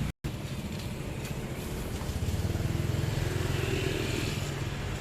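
Motor vehicle engine running close by: a steady low hum that gets a little louder in the middle. The sound drops out completely for a moment just after the start.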